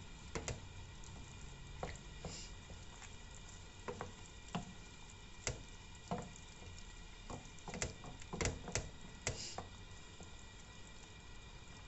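Wooden spoon stirring chicory leaves through rice and chicken in a non-stick frying pan, knocking and scraping against the pan in irregular clicks, with a busier run of knocks about two-thirds of the way through. Under it the broth simmers with a faint steady hiss.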